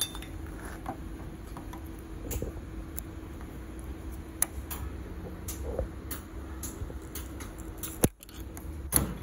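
Pliers working inside the A/C compressor's pulley and coil housing: scattered sharp metal clicks and taps, the loudest about four seconds in and twice near the end, over a steady faint hum.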